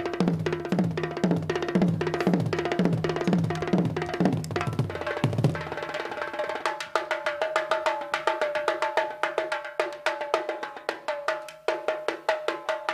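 Tabla being played fast. For about the first six seconds, bass-drum strokes with a falling pitch come about twice a second under rapid strokes. Then the bass stops and quick strokes on the higher drum ring on one steady note.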